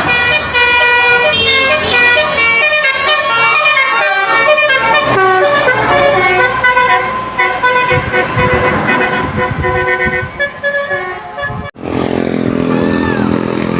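Basuri musical horn on a passing vehicle playing a tune of short stepped notes over road noise. It cuts off suddenly near the end, and an engine running and voices follow.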